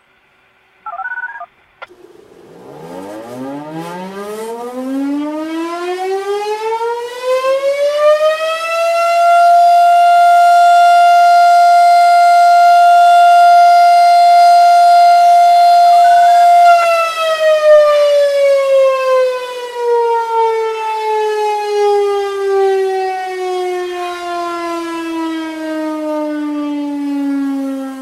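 Darley STH-10 outdoor warning siren sounding an alert blast: it winds up from a low pitch to a steady high tone held for about seven seconds, then winds down in a slowly falling tone that is still sounding at the end. A brief short sound comes about a second in, before the wind-up.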